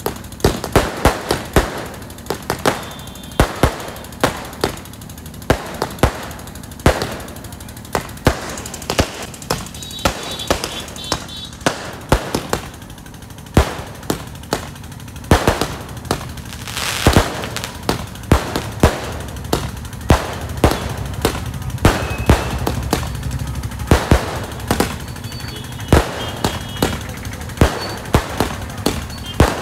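Fireworks going off: aerial shells fired from a ground launcher bursting overhead in a steady string of sharp bangs, about two a second. About halfway through comes a longer, louder rush of noise.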